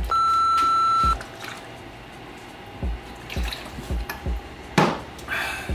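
A censor bleep: one steady high beep about a second long, cut in over a swear word. Background music with a steady beat follows.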